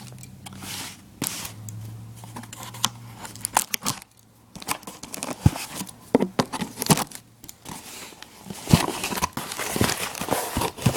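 Shipping packaging being torn open and handled: irregular tearing, crinkling and crackling of plastic and bubble wrap.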